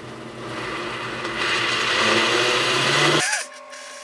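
Countertop blender running, blending soaked cashews, onion and almond milk into a cheese sauce. The motor gets louder about a second and a half in, then cuts off suddenly about three-quarters of the way through.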